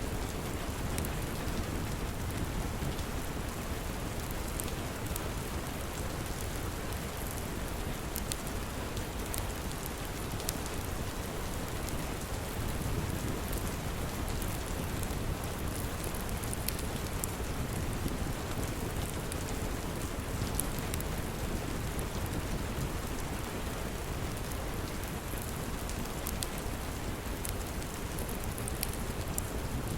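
Steady rain, with scattered sharp crackles from a wood fire over it.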